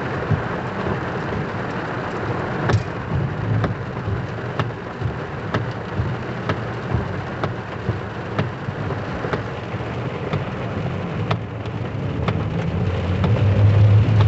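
Heavy rain beating on a car's roof and windshield, heard from inside the cabin, with the windshield wipers at full speed knocking about once a second. A low rumble swells near the end.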